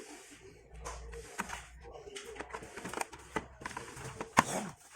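Irregular small clicks and knocks, with a low hum under them for a few seconds and one sharper knock near the end.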